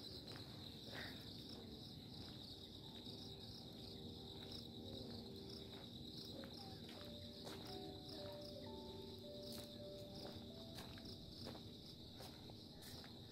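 Insects trilling steadily in a faint, high, continuous chorus, with scattered faint clicks.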